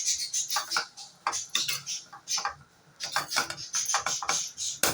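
Spatula stirring and scraping in a frying pan, a run of irregular scrapes and clicks as chopped capsicum is mixed into scrambled egg.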